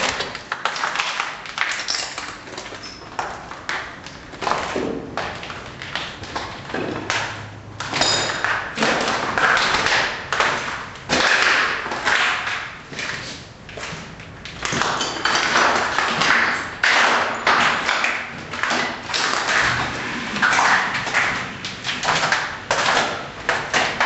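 Objects, doors and fittings in a high-rise apartment rattling, clattering and banging without pause as the building shakes in a strong earthquake.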